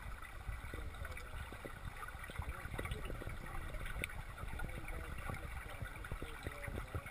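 Muffled underwater sound picked up by a GoPro HD Hero inside its waterproof housing in a swimming pool: a steady low rumble of water with small scattered clicks, and faint muffled voices.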